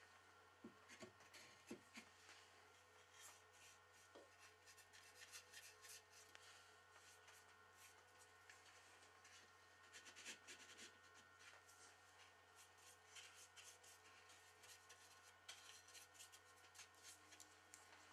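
Faint scratchy brushing and rubbing of a small brush worked into the notches of slotted pine blocks, with a few light wooden knocks in the first two seconds as the blocks are handled. A steady low hum lies under it.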